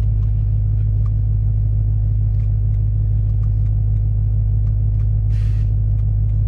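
BMW E92 M3's V8 engine idling with a steady low rumble. A few faint clicks come over it, and a brief hiss about five seconds in.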